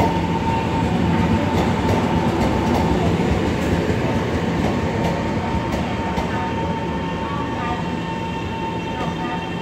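Taiwan Railway EMU900 electric commuter train rolling past at low speed: steady running noise of wheels on rail, with a steady high hum from its traction equipment. The sound eases a little toward the end as the train moves off.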